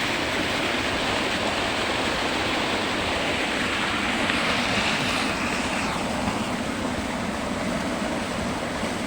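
Steady rushing of a river swollen with fresh floodwater.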